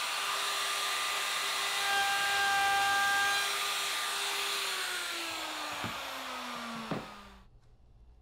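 Handheld wood router fitted with a 1/4-inch roundover bit running at full speed with a steady high whine. It is switched off about five seconds in, and its pitch falls as the motor spins down and stops a couple of seconds later, with two sharp knocks during the spin-down.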